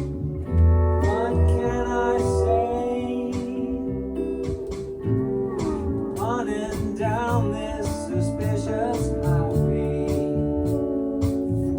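A band playing an instrumental passage with guitars, bass and drums, a lead melody line bending and wavering in pitch over steady chords.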